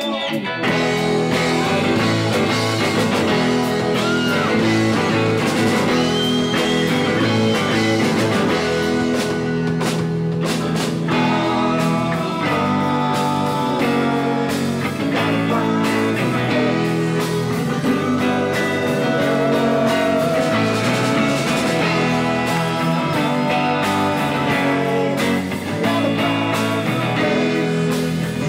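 A live rock band playing: electric guitars over bass and a drum kit, loud and steady.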